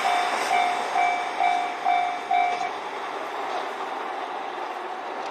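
Level crossing warning bell ringing about twice a second and stopping about two and a half seconds in, over the fading running noise of a KiHa 261 series diesel train that has just passed the crossing.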